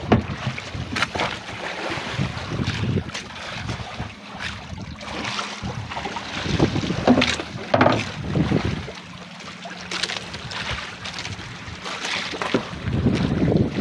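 Wind buffeting the microphone and sea water splashing against an outrigger boat's hull and float, in uneven gusts and surges.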